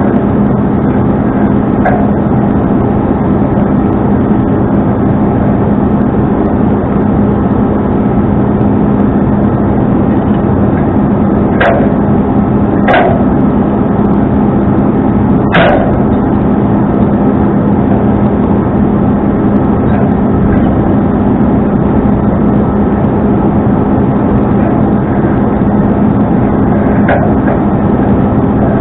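Tow truck engine running steadily, with a few sharp knocks about halfway through and one more near the end.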